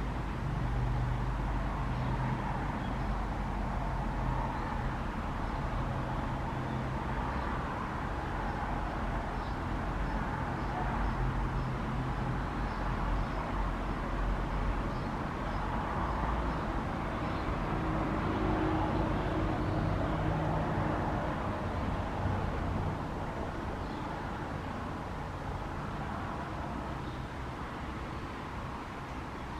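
Auer LS10 electric siren coasting down long after switch-off: the slowly turning rotor gives a steady low hum with a rumbling, noisy undertone, easing off a little near the end. This is the run-down of a siren with a damaged bearing.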